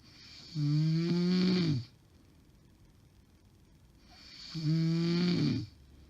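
A woman snoring heavily in her sleep: two loud snores about four seconds apart, each a pitched tone held for a little over a second that drops in pitch as it ends. The snorer is believed to have sleep apnea.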